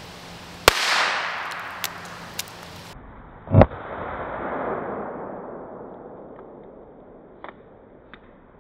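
Silver Salute firecrackers going off: two sharp bangs about three seconds apart, the second louder and deeper, each trailing off in a long fading echo.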